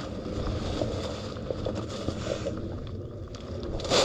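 Wind rumbling on the microphone in an open field, with faint scattered rustles and ticks. There is a brief louder rush at the very end.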